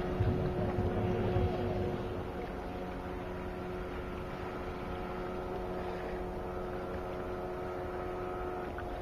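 Suzuki DT 9.9 two-stroke outboard motor running at speed, a steady drone heard from a distance across the water. The low rumble is louder for the first two seconds, then the sound settles slightly quieter.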